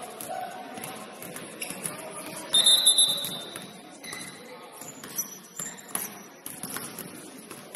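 A shrill tone about a second long, starting about two and a half seconds in and dying away in the hall's echo, is a game signal at a basketball game. Knocks and voices echo in the gym around it.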